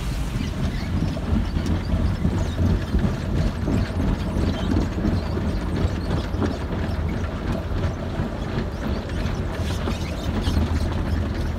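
Automatic tunnel car wash heard from inside the car's cabin: water spraying and running over the windows and body over a steady low rumble of the wash machinery, with scattered small patters.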